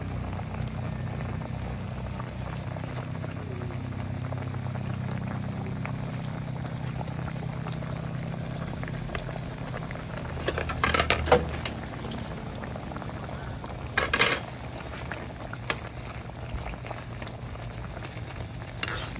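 Tilapia in coconut milk bubbling at a rolling boil in a pan, a steady bubbling with fine popping. Two short, louder bursts of clatter break in, about ten and fourteen seconds in.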